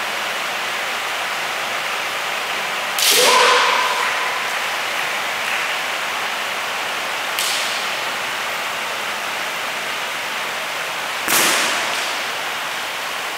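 Kendo sparring: sharp, ringing cracks of bamboo shinai striking armour, a loud one about three seconds in with a brief shout, a lighter one past seven seconds, and another loud one past eleven seconds, over a steady hiss.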